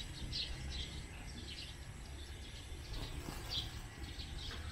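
Faint outdoor background: small birds giving short, scattered chirps over a steady low rumble.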